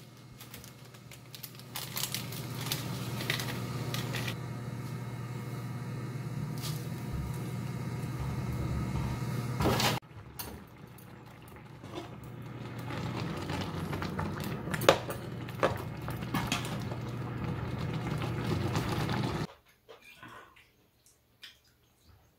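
Rice noodles cooking in a pan on an induction hob: a steady low hum under the simmering broth, with clicks and scrapes of metal chopsticks stirring the noodles in the pan. Near the end it drops to quiet room sound.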